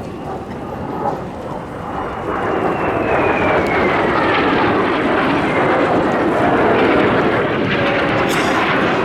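Kawasaki T-4 jet trainer flying past with its turbofans whining. The whine falls steadily in pitch as the jet passes, and the sound swells about two seconds in and stays loud.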